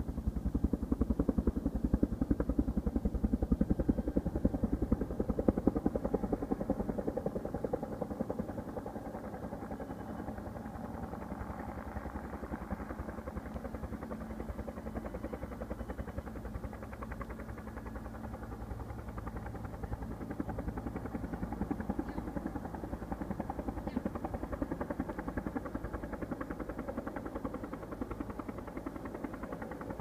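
Helicopter rotor chopping steadily, the sound of a firefighting helicopter flying water-drop runs. It is louder for the first several seconds, eases off, then swells a little again about two-thirds of the way through.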